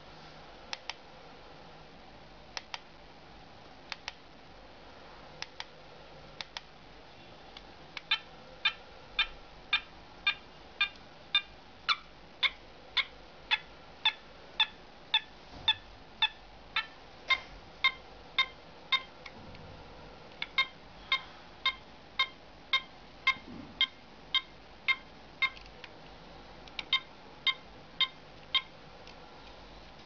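Bicycle turn-signal switch unit's buzzer giving short electronic beeps about twice a second while the indicator flashes, with a short break about two-thirds of the way through. Before the beeping starts, a few faint paired clicks of its switches.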